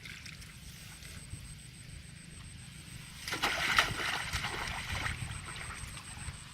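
Water splashing and sloshing for about two seconds around the middle, over a low steady rumble.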